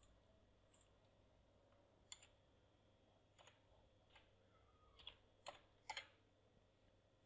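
Faint computer keyboard keystrokes: scattered single taps, then a few louder ones close together about five to six seconds in.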